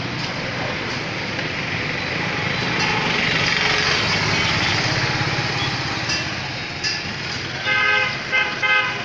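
Busy street traffic noise, swelling for a few seconds in the middle as a vehicle passes, then a vehicle horn honking three short times near the end.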